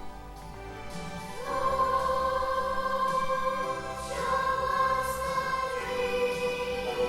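Music with a choir holding long sustained notes that swell in about a second and a half in and shift to new chords twice.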